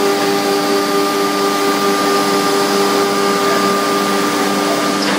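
2007 MultiCam 5205 CNC router cutting grooves in a wood sheet, its spindle running under load while the dust-collection hose at the cutter draws air. The sound is a steady machine whine of several tones over an even rush of air.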